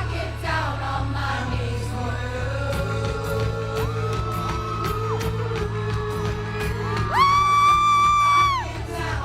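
Live pop vocals over amplified backing music at a band sound check, with long held sung notes. A louder, high held voice note comes in sharply about seven seconds in and lasts about a second and a half.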